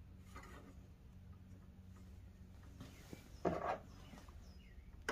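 Quiet room tone with a faint steady hum, broken about three and a half seconds in by a brief rustle from a shirt sleeve brushing past close by.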